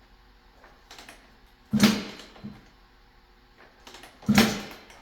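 A Suzuki RM250 single-cylinder two-stroke being kicked over twice, about two and a half seconds apart, each kick a short thump and whoosh as the engine turns through compression without firing.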